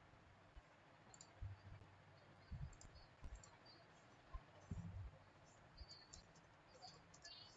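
Faint, scattered clicks of a computer mouse and keyboard keys, with a few soft low thumps between them and a quick run of key ticks near the end.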